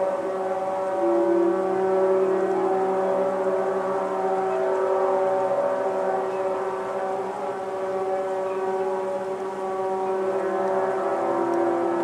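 Several ship horns sounding together in salute, long steady notes at different pitches overlapping. Another note joins about a second in and again near the end.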